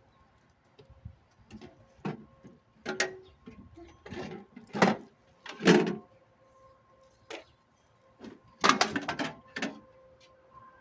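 Irregular knocks and clanks of parts being handled while a microwave oven is taken apart, the loudest a few seconds in and a quick rattling cluster near the end.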